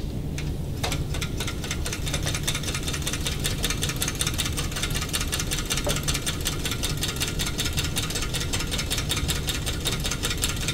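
Homemade soda-can Stirling engine running, its wire crankshaft and CD flywheel turning with a fast, even ticking rattle over a low rumble.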